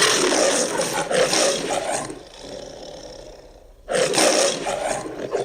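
A movie-style Tyrannosaurus rex roar sound effect, built from mixed lion, tiger and King Kong roars: one long rasping roar that tails off by about two seconds in, then a second roar starting just before four seconds in.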